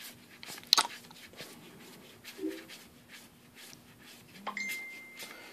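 Trading cards handled and fanned out between the hands: soft rustling with a few sharp card flicks, the loudest about three-quarters of a second in. A faint steady high tone comes in near the end.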